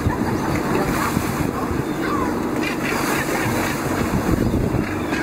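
A boat's engine running steadily under the rush and splash of sea water along the hull, with wind buffeting the microphone.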